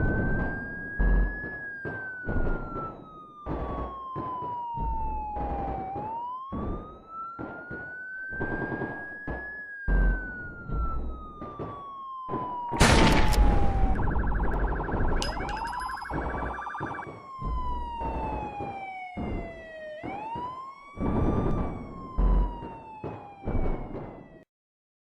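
Siren wailing, its pitch climbing quickly then falling slowly in cycles a few seconds long, over regular heavy thumps. About halfway through comes a loud crash, then a buzzing horn tone, and a second siren carries on wailing until it cuts off near the end.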